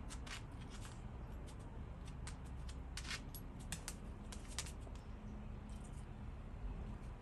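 A dog nosing around on a concrete floor, with faint, irregular small clicks and ticks from its metal collar tag clinking as it moves its head.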